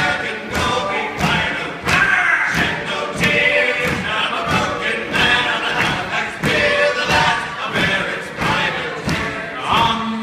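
A group of men singing an Irish-style song together, with a steady beat of hits about twice a second underneath.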